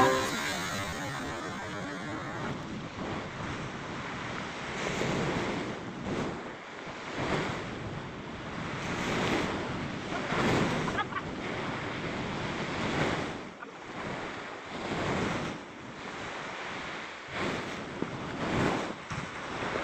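Sea waves breaking on rocks and washing up the beach, surging and easing every second or two, with wind buffeting the microphone.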